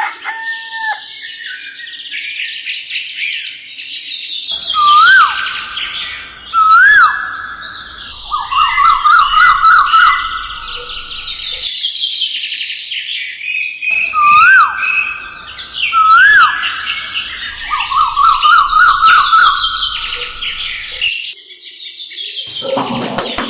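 Songbirds chirping and singing, with short upswept whistles and fast trills. The same stretch of song plays twice, about ten seconds apart.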